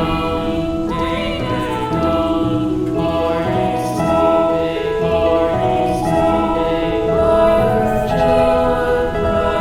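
Background music: a choir singing held chords that change every second or so.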